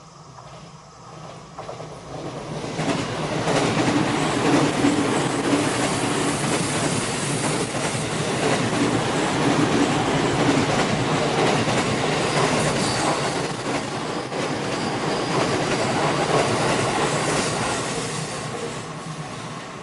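An electric train passing on a canted curve. Its running noise swells over the first few seconds as it arrives, stays loud for about fifteen seconds, and fades near the end.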